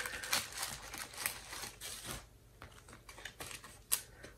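Pokémon trading cards being handled and flipped through by hand: a quick run of light clicks and snaps for about two seconds, then a few scattered ticks, one sharper near the end.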